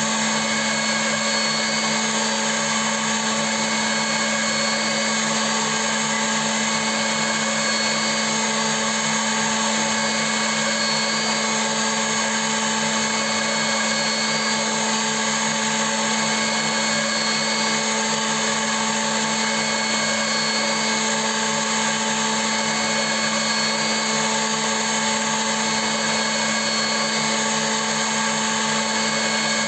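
CNC milling machine running steadily: a constant motor whine made of several steady tones, with no change in pitch or level.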